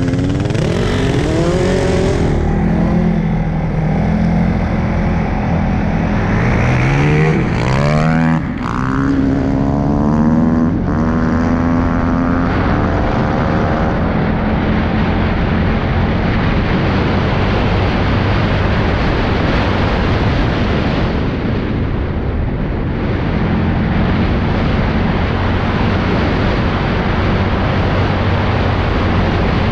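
Engines revving and rising in pitch as the vehicles pull away, then the CFMOTO CFORCE 625S ATV running steadily at speed on a dirt track, with a steady rush of wind noise.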